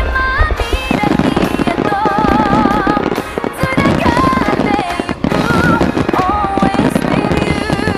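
Music playing with a dense finale barrage of fireworks, many aerial shells bursting and crackling in rapid succession.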